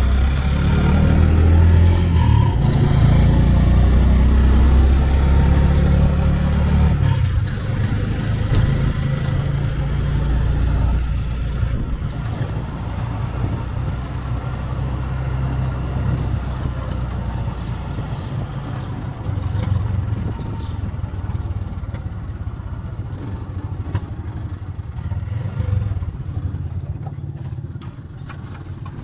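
Three-wheeled mototaxi (caponera) engine running as it drives, heard from the passenger seat of the open cab; it is loudest for about the first seven seconds, then runs more quietly.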